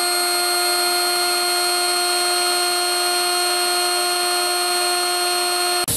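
Compressed-air-driven motor spinning at a steady high speed: a steady high whine with overtones over the hiss of air. It cuts off abruptly near the end.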